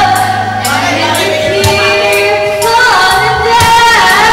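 A woman singing into a handheld microphone over a backing track with a beat, holding long notes and sliding between pitches.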